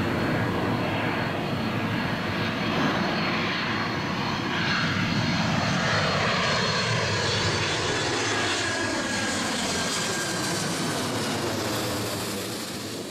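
Boeing 767-300 twin-engine jet airliner on final approach with gear down, passing low overhead: a steady jet roar with a high whine, its pitch sliding down as it goes by from about four seconds in, then fading near the end.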